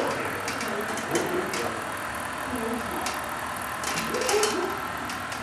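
HO scale model freight train running past on the layout: a steady hum with scattered light clicks.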